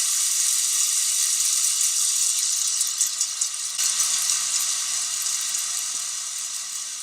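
Kinetic sound installation of many small motor-driven elements making a dense, even crackling hiss. It cuts in abruptly and slowly fades toward the end.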